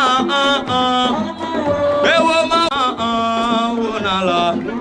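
Music with a singing voice holding long notes that slide from one pitch to the next.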